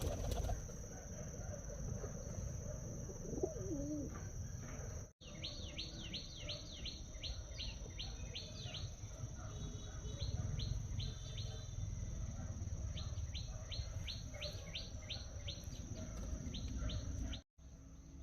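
Bird chirping in two quick runs of short, falling notes, over a steady high-pitched buzz and a low rumble.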